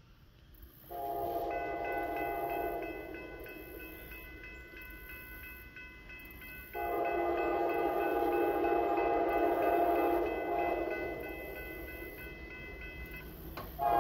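Approaching freight locomotive's air horn sounding long blasts for a grade crossing: one starting about a second in, a second longer one from about seven seconds, and another beginning right at the end. A railroad crossing bell rings rapidly and evenly under the horn.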